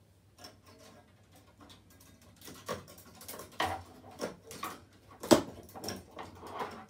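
Irregular clicks and knocks of a coat hanger being fetched and handled, sparse at first and busier from about two and a half seconds in, with one louder knock about five seconds in.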